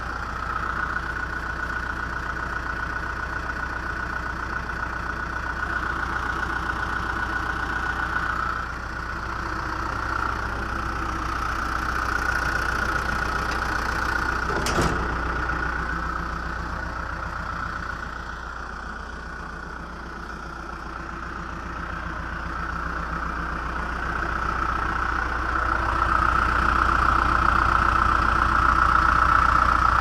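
John Deere 310SG backhoe's four-cylinder diesel engine idling steadily, growing louder near the end. A single sharp click sounds about halfway through.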